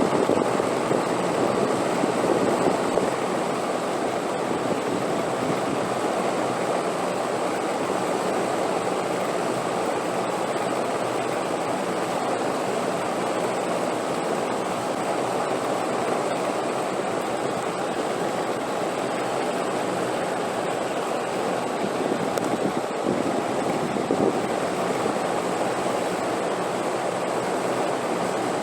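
Steady wind, a continuous rushing noise with no gusts or breaks, a little stronger in the first few seconds.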